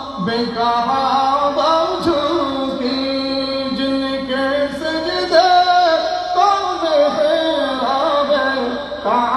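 Men singing a devotional durood (salutation on the Prophet) into microphones in long melodic phrases with held notes.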